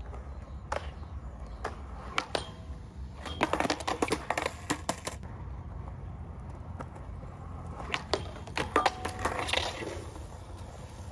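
Skateboard on concrete: a few single knocks, then two bursts of rapid clattering, about three seconds in and again around eight to ten seconds in, over a steady low rumble.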